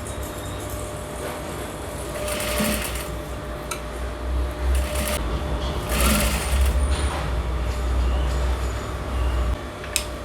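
Electric sewing machine stitching a seam in short runs, its motor hum heaviest through the middle of the stretch, with a sharp click near the end.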